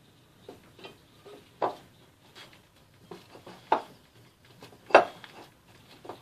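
Hands kneading and pressing soft dough in a glass bowl: irregular squishes and knocks, with three louder thumps about one and a half, three and a half and five seconds in, as the glass bowl knocks against the stone countertop.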